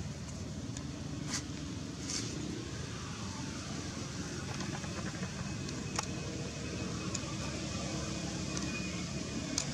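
Steady low outdoor background rumble, with a few faint sharp clicks scattered through it.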